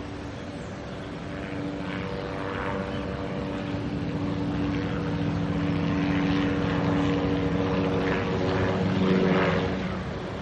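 Motorboat engine running steadily, growing louder as it comes closer and loudest about nine seconds in before easing off, with bursts of rushing water from the hull.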